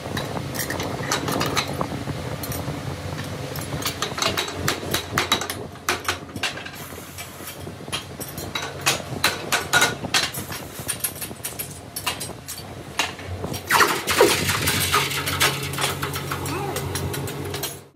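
Steel hand tools clinking and knocking against a steel die and a freshly cast piston, over a steady machine hum. Near the end, water hisses and bubbles as the hot piston is quenched.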